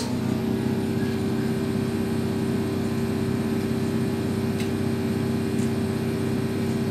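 Electric train running, heard from inside the driver's cab: a steady hum with a few held low tones, and a sharp click right at the start.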